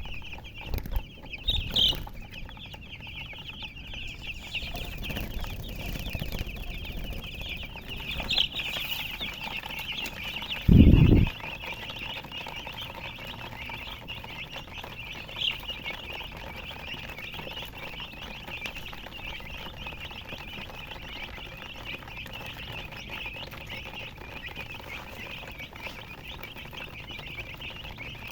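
Many chicks peeping at once in a dense, unbroken chorus of high chirps. A brief low thump about eleven seconds in is the loudest moment.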